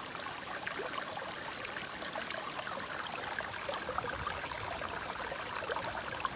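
Small, shallow stream trickling over stones and mud: a steady flow of running water with many small splashing ticks.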